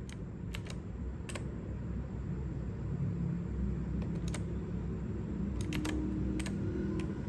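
Single key presses on a mechanical keyboard with clicky blue switches: about nine sharp clicks, scattered singly and in pairs rather than typed in a run, over a steady low hum.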